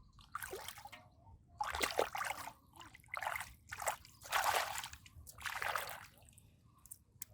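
Hands splashing and sloshing in shallow muddy water, in about six separate bursts of half a second to a second each.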